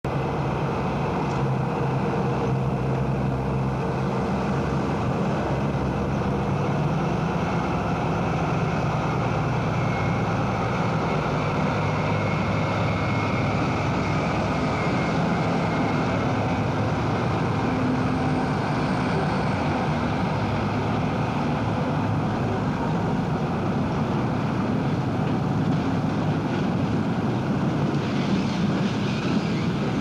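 Diesel engines of DB class 217 diesel-hydraulic locomotives running steadily as they haul a freight train past, a constant low engine hum with no pauses.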